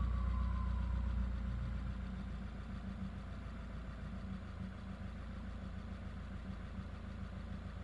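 Subaru WRX turbocharged flat-four engine settling back to idle after a rev, a faint turbo whine falling away in the first second or so. It then runs at a steady, low idle.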